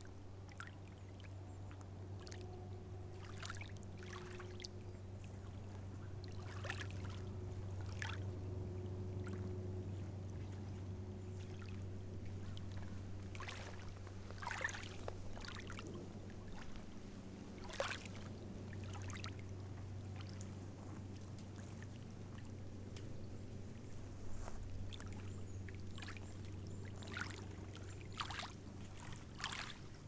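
Lake water lapping and splashing in small, irregular splashes, over a steady low hum.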